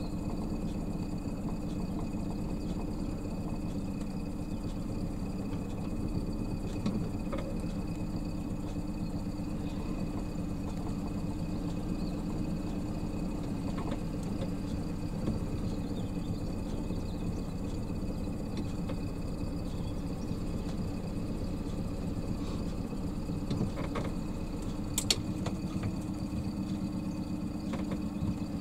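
Norman 20 Conquest cruiser's engine running steadily, a constant low hum, with a single sharp click near the end.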